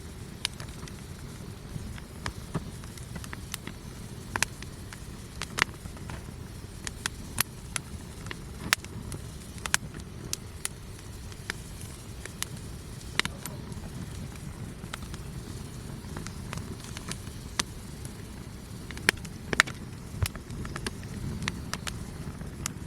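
Wood campfire crackling, with sharp pops at irregular intervals and a few louder snaps near the end, over a steady low rumble.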